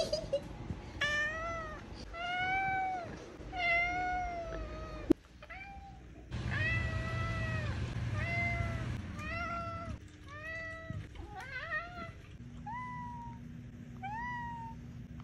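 A domestic tabby cat meowing over and over: about a dozen short meows, each rising then falling in pitch, roughly one a second. The last few are shorter upward chirps, with a faint steady hum behind them.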